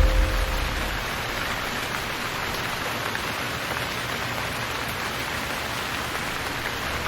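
Steady rain falling, an even hiss with no pattern or pauses. A low rumble dies away in the first second.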